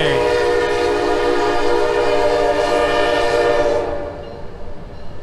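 CSX freight locomotive's horn sounding one long steady blast of about four seconds, then cutting off and leaving the low rumble of the train rolling by.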